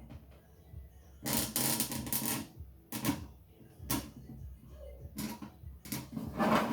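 A tool scraping and scratching along the crack in a plastic freezer drawer to prepare the break: one longer scrape about a second in, then several short sharp strokes.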